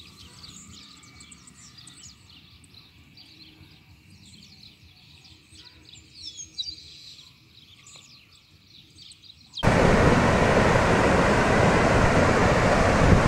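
Birds chirping faintly, many short high calls, with a few louder calls about six seconds in. About nine and a half seconds in, the sound cuts abruptly to a loud steady rush of wind and rain noise.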